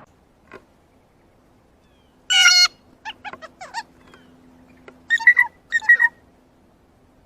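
Blue jay calling: one loud call about two seconds in, a few short notes after it, then two quick clusters of calls near the end.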